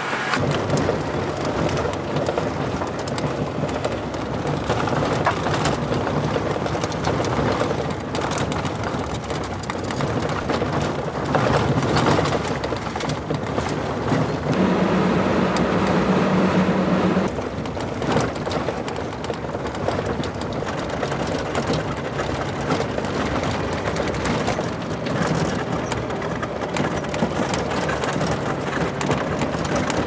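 Road noise inside a Toyota Tundra pickup's cab driving on dirt and gravel roads: the tyres on the gravel and the engine make a steady noise, with a brief low hum about halfway through.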